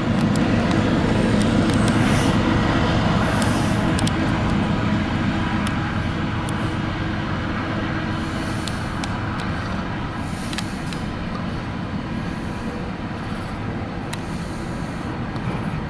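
Double-stack intermodal freight train rolling past: a steady rumble of wheels on the rails with a few sharp clicks, slowly getting quieter. Heard from inside a car.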